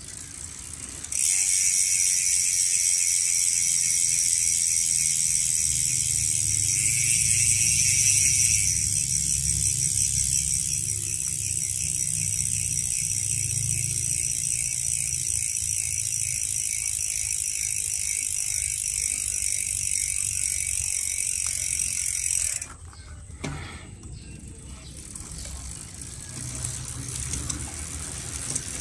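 Mavic Crossride rear hub freewheeling as the wheel spins: the freehub pawls click so fast that they make a steady high buzz. It starts about a second in and cuts off suddenly a little after twenty seconds, followed by a single click.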